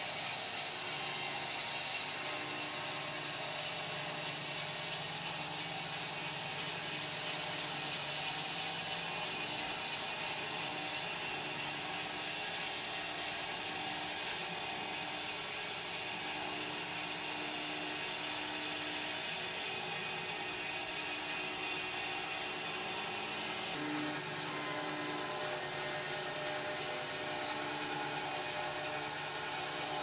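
Homemade band sawmill cutting through a silver maple log: a steady hiss from the blade over a lower machine hum. The sound shifts slightly about 24 seconds in.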